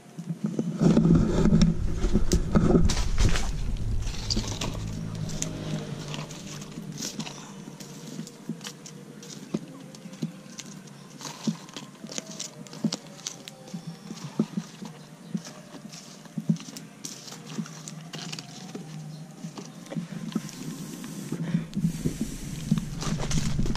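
Small wood fire crackling and popping in a dug-out earth pit while burning sticks are poked and shifted, with irregular sharp pops throughout. A low rumble comes in the first few seconds and again near the end.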